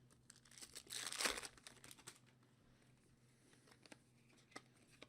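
Foil wrapper of a football trading card pack crinkling as it is torn open, for about a second, followed by a few faint ticks of cards being handled.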